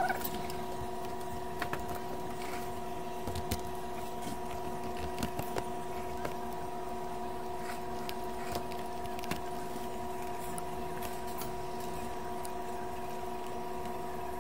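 Scattered light clicks and knocks from a mixer's circuit board being handled on a workbench, over a steady whine made of several held tones, with a brief louder clatter right at the start.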